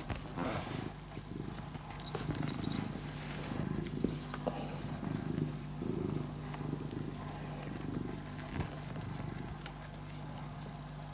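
Domestic cat purring close to the microphone, in low pulses about once a second, from about two seconds in until near the end.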